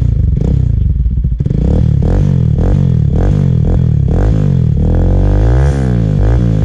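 Bajaj Pulsar NS200's single-cylinder engine through an SC Project-style open muffler with its silencer insert removed, running steadily then revved in quick repeated blips, the pitch rising and falling about once or twice a second.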